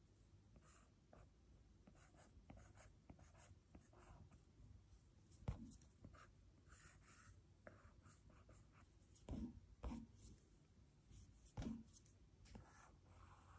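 Faint tapping and scratching of a stylus drawing on a tablet's glass screen, with a few sharper, louder taps about halfway through and again a little later.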